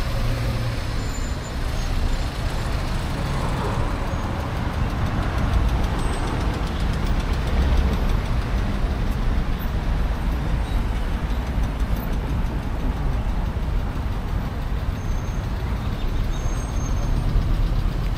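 Road traffic running steadily along a city street, a constant low rumble.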